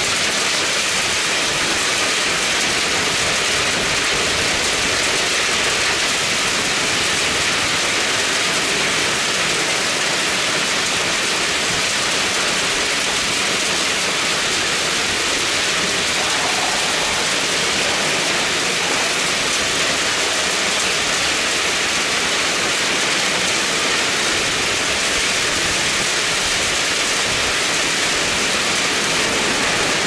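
Heavy rain falling steadily: a dense, even hiss with no breaks.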